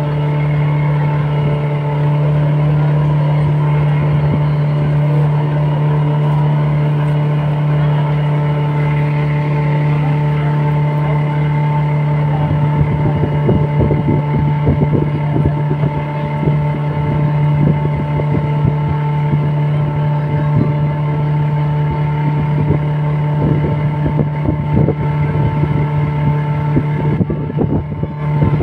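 A motorboat's engine running steadily, a constant low drone that holds one pitch. From about halfway on, irregular wind buffeting on the microphone rumbles over it.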